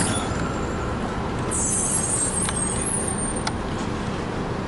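Melbourne A-class tram and street traffic running steadily, with a short high hiss about a second and a half in and a couple of sharp clicks after it.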